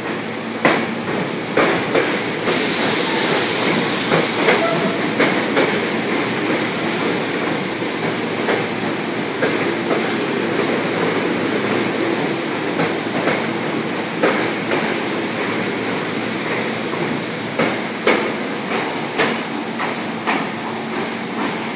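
SEPTA Silverliner IV electric multiple-unit train rolling past along an underground station platform: a steady rumble with repeated wheel clicks over the rail joints. A hiss of air rises over it for about two seconds near the start.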